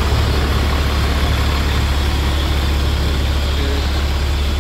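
A large bus's diesel engine idling, a steady deep rumble.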